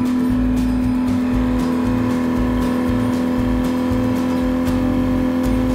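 Outboard motor running at a steady pitch under way, mixed with background music.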